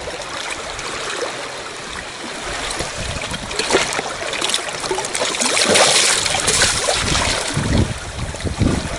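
Shallow seawater washing and splashing among shoreline rocks, a steady rushing that swells louder midway.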